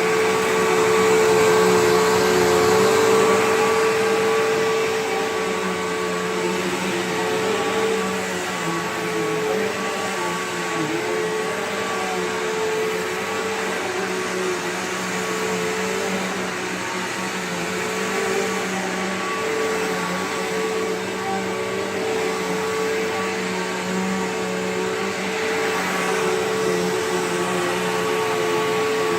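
Bissell PowerGlide Platinum bagged upright vacuum running, a steady motor hum with a constant whine over the rush of air. It is a little louder for the first few seconds, then holds level.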